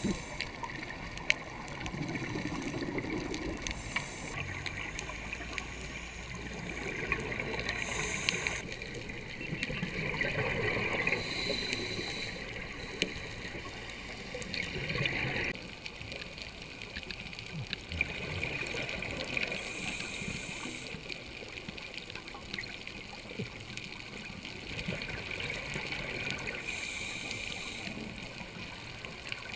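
Underwater sound on a scuba dive: a steady wash of water with bubbling bursts of exhaled scuba breath swelling and fading every few seconds.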